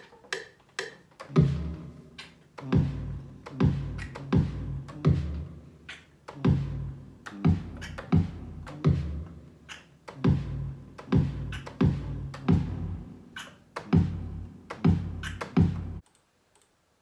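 Electronic beat played live from a MIDI keyboard through music software: a string of deep bass-drum hits, each a sharp click with a held low boom, roughly one a second. It cuts off suddenly about a second before the end.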